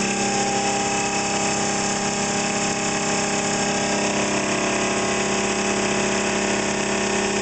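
Bench-top ReGenX generator rig spinning at about 4,400 rpm, one of its coils driven through a commutator as a motor coil: a steady hum at constant pitch over a whirring hiss.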